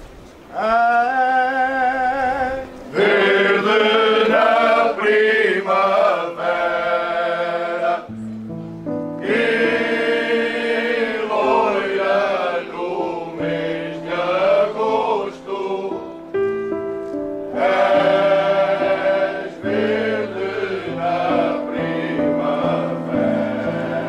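Background music: a choir singing with wavering, vibrato-rich voices, joined about eight seconds in by a low accompaniment line moving in steady held notes.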